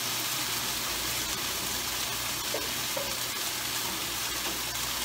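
Thin strips of marinated churrasco (skirt steak) sizzling steadily in hot oil in a frying pan, left to cook untouched for a moment during a stir-fry.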